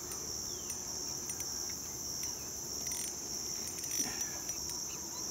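A steady, high-pitched chorus of insects, shrilling without a break.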